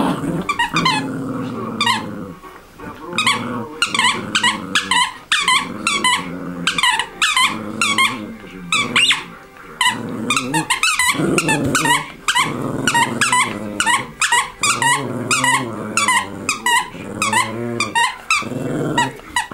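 A Prague ratter growling as it chews a squeaky plush toy, the toy squeaking rapidly over and over.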